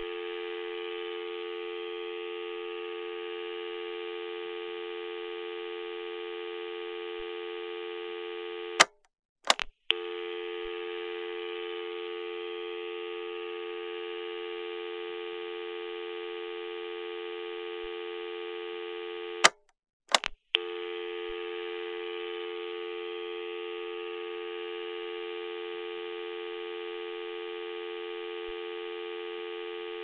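Telephone dial tone: a steady two-note hum that holds without a break, cut off twice by a pair of sharp clicks and about a second of silence before it starts again.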